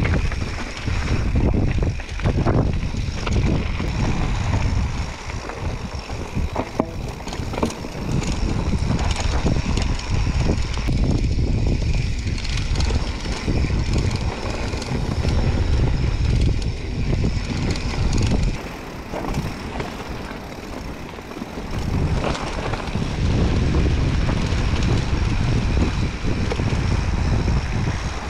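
Mountain bike being ridden over rough ground: wind buffets the camera's microphone as the bike rattles and clatters. It eases off for a few seconds about two-thirds through.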